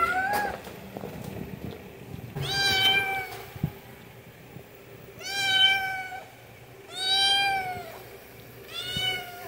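Young white cat meowing, begging for food: four separate drawn-out meows of about a second each, a couple of seconds apart, each rising then falling slightly in pitch, after the tail end of one at the very start.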